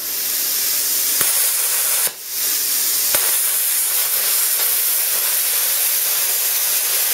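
A cheap Chinese plasma cutter's arc hissing steadily as it cuts through thin mild steel sheet. The hiss dips briefly about two seconds in, then picks straight back up.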